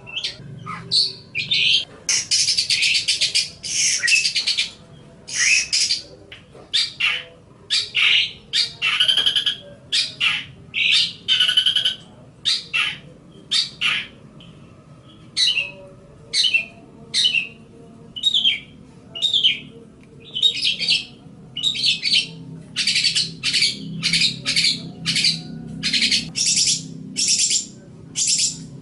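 Long-tailed shrike (cendet) singing a fast, chattering song of short chirps mixed with harsh, noisy notes, with a brief pause about halfway through.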